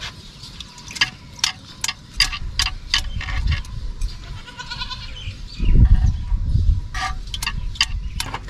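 A hand sloshing through buttermilk in a clay pot, gathering the churned butter into a lump, with sharp clicks scattered through as the metal bangles on the wrist knock against the pot. A louder low rumble comes a little past the middle.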